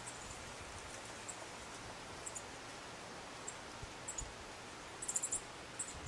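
Quiet outdoor background hiss with short, very high-pitched chirps now and then, and a quick run of them about five seconds in.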